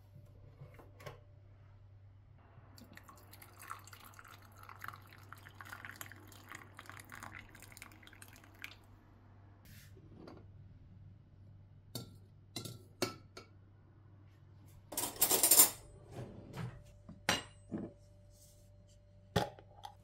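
Water poured from an electric kettle into a glass cup holding a glass tea-infuser tube for fruit tea, a thin steady trickle lasting about six seconds. Then scattered clinks and knocks of glass on the counter, with a brief louder noise about three quarters of the way through.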